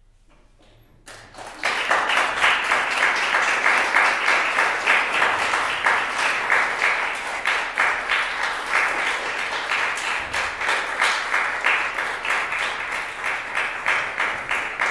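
Audience applause: after a brief hush, clapping breaks out about a second in and builds to a dense, steady ovation.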